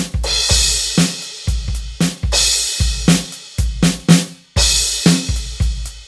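Roland electronic drum kit played in a steady rock beat: kick and snare hits with a crash cymbal struck about every two and a half seconds.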